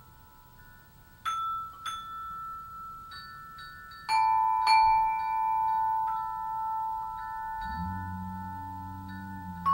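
Background music: a slow melody of struck, bell-like notes that ring on. Low held bass notes come in near the end.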